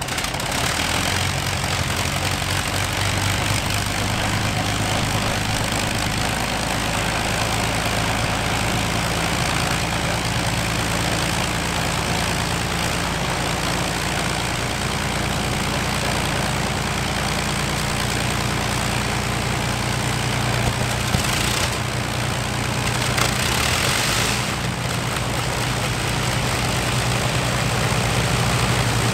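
Avro Lancaster's Rolls-Royce Merlin V12 piston engines running on the ground just after start-up, a deep steady engine note that shifts in pitch a few times. Partway through another engine starts and joins in, and the sound grows slightly louder near the end.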